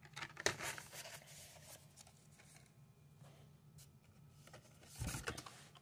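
Plastic blister-packed toy car cards and their cardboard case rustling and clacking as a hand pulls a stack of cards from the tray. There are two short spells, one about half a second in and one near the end with a dull thump.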